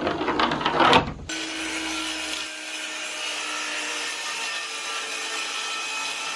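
Cordless circular saw running and cutting through a sheet of 7/16-inch OSB, a steady whirring cut that holds an even level. It is preceded by about a second of loud clatter and scraping.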